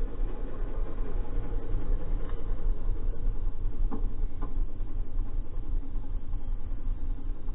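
BMW F800GS's parallel-twin engine running steadily at low revs as the motorcycle creeps and turns slowly, with a couple of faint clicks about four seconds in.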